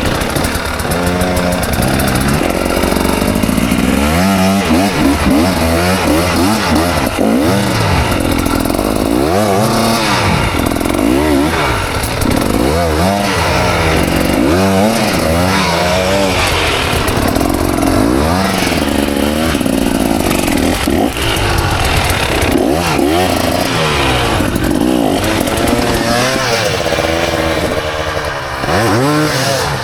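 KTM 300 XC single-cylinder two-stroke dirt bike engine revving up and down again and again as the throttle is worked on and off, many times in quick succession.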